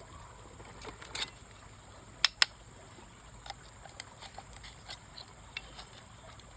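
Hard taps and clicks on stone: a small pair about a second in, two loud sharp knocks a quarter second apart a little over two seconds in, then lighter scattered ticks.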